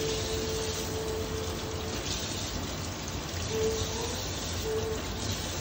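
Kitchen tap running water onto a sea bream in a stainless steel sink as hands rinse and rub the fish clean, a steady splashing.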